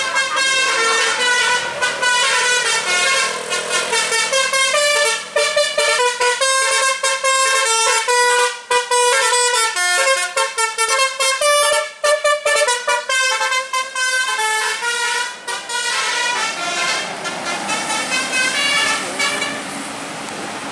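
Bus basuri telolet horn playing a fast melody of short stepped notes. It sounds loudly for about fifteen seconds, then thins to a few weaker notes that die away near the end.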